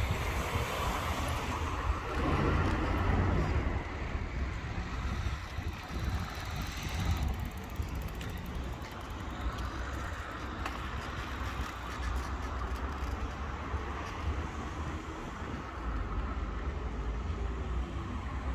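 Road traffic going by on a city street, with a steady low wind rumble on a moving microphone. A car passes near the start, when the sound is loudest.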